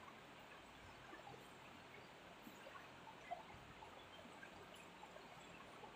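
Near silence: faint room hiss with small scattered scratches of a marker writing on a whiteboard, and one slightly louder tick about three seconds in.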